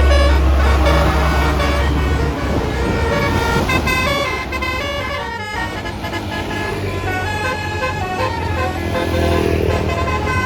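Multi-tone 'telolet' bus horn playing a quick tune of short stepping notes over a steady low hum from the running engine.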